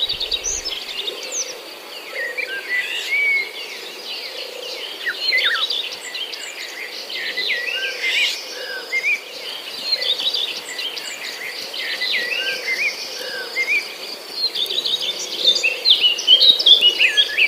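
Several birds chirping and singing at once in a busy chorus of short, overlapping calls, over a steady high insect trill.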